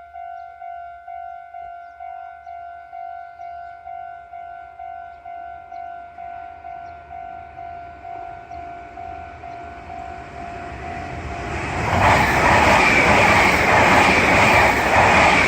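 Japanese railway level-crossing warning bell ringing its electronic "kan-kan" about twice a second. A train's running noise swells from about ten seconds in and passes loudly over the last few seconds, drowning out the bell.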